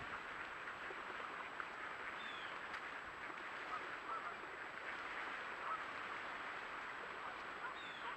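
A large flock of ducks calling all at once: a dense, steady chorus of overlapping quacks and chatter. Two short falling whistles stand out, about two seconds in and near the end.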